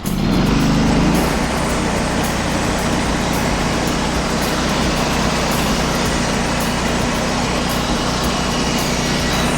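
Gasoline engine of a portable sawmill running steadily at high speed while milling a log into boards. It comes in abruptly at the start, then holds an even, loud drone.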